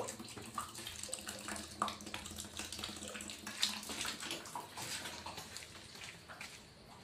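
Water splashing and running in a plastic basin, with many small splashes and knocks, easing off near the end.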